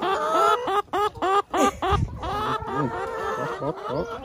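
Chickens clucking: a quick run of short, repeated calls, several birds overlapping.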